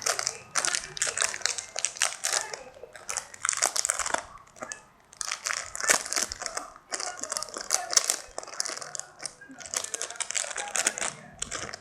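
Plastic packaging crinkling and crackling in irregular bursts as a squishy toy's plastic wrapper is handled and opened.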